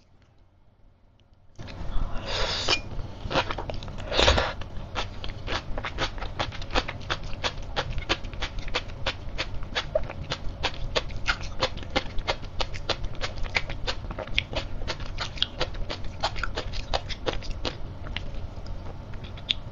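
Close-miked chewing of crisp sea grapes (green caviar seaweed), their little beads popping and crackling between the teeth, many crisp crackles a second. It starts about a second and a half in, loudest in the first few bites.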